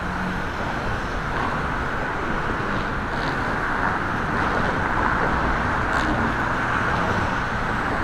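Steady street traffic noise: a continuous rush of tyres and engines from passing vehicles, swelling slightly around the middle.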